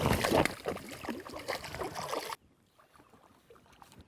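Water splashing and sloshing close by for about two and a half seconds, then cutting off suddenly.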